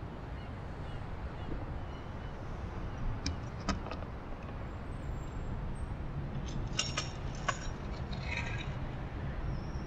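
Steady low outdoor rumble of distant city traffic, with a few light metallic clinks about three seconds in and again around seven seconds.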